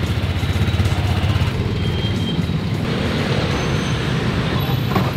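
Motorbike engines and street traffic running steadily, with one motorbike close by.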